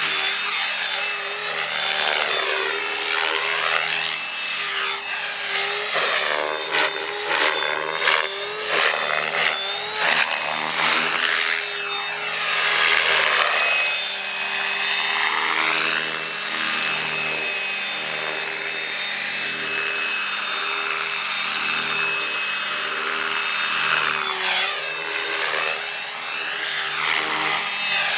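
Electric RC helicopter (a stretched MSH Protos with a Scorpion motor) in 3D flight: rotor blade buzz with a steady high motor-and-gear whine. The sound sweeps up and down every few seconds as the helicopter swoops and passes.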